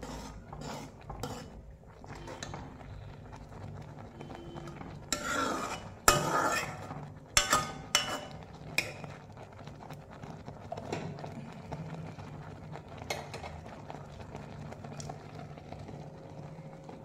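A steel spoon stirs and scrapes a frying paste in a metal kadai, with sharp clinks against the pan. The clinks are loudest in a cluster about five to nine seconds in, over a faint bubbling sizzle.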